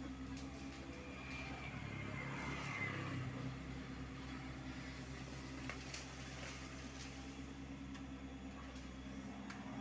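Hyundai R80-7 mini excavator's diesel engine running steadily while the machine digs, with a brief whine falling in pitch about one to three seconds in and a few faint clicks.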